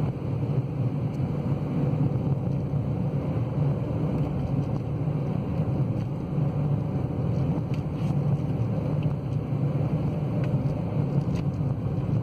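Steady low road and engine rumble inside the cabin of a car driving at speed on a highway.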